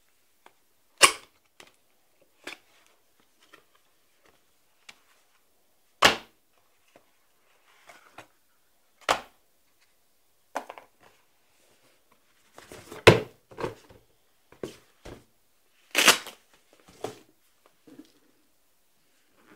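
Cardboard lens box handled and opened by hand: a string of scattered knocks and rustles, with five sharper knocks several seconds apart and busier rustling and tapping in the later part as the padded lens pouch is lifted out.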